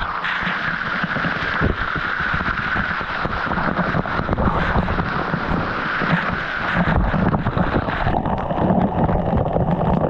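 Waterfall rushing close by: a steady, loud wash of falling water, with uneven low buffeting on the microphone.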